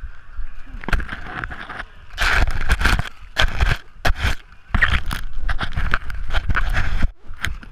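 Muddy water splashing and scraping against a wearable action camera's housing. The noise comes in loud, irregular rushes from about a second in and stops abruptly shortly before the end.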